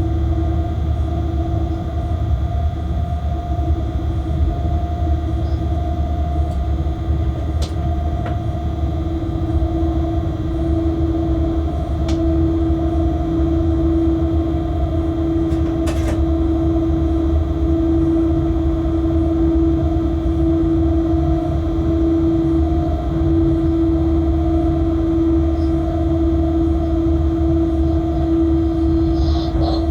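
Freight locomotive cab interior noise: a steady low rumble with a constant hum, broken by a few brief sharp clicks.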